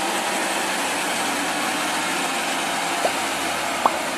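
A large truck crane's diesel engine running steadily as the crane creeps through a tight turn, with two brief rising chirps near the end.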